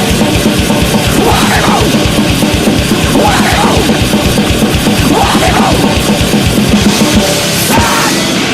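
Loud, distorted heavy-metal-style music with very fast, dense drumming.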